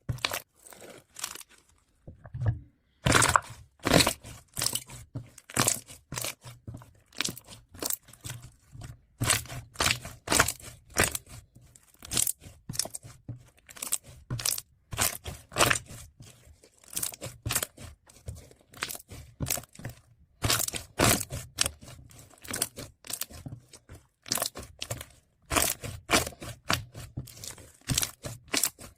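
Slime being squished and stretched by hand, giving a dense, irregular stream of sharp sticky clicks, crackles and pops, with a short pause about two seconds in.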